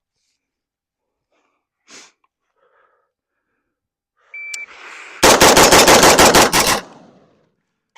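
A short electronic shot-timer beep, then a rapid string of .223 rifle shots, one crack after another for about a second and a half.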